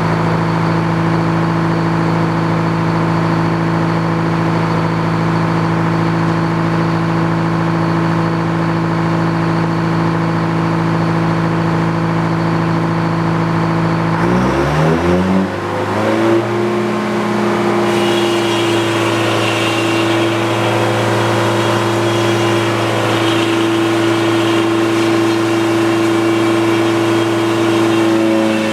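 Engine powering a Frick sawmill running at a steady speed, then revving up about halfway through and settling at a higher, steady speed.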